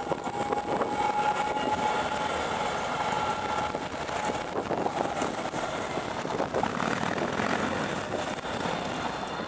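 Electric tram passing close by and moving off, with a steady whine over the rumble of its wheels on the rails; the whine fades out about halfway through, leaving a general rumble.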